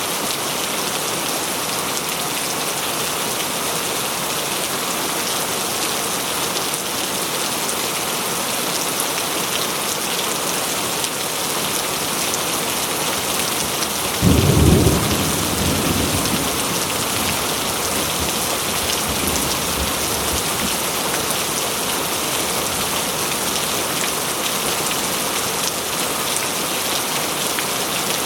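Steady rain falling and splashing on surfaces. A single clap of thunder breaks in about halfway through, then rumbles away over a few seconds.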